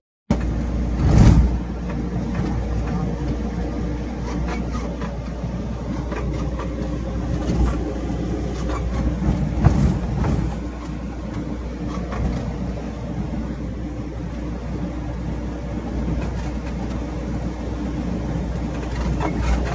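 CNG-fuelled car driving on a highway, heard from inside the cabin: steady engine drone and road rumble. There are louder thumps about a second in and again about halfway.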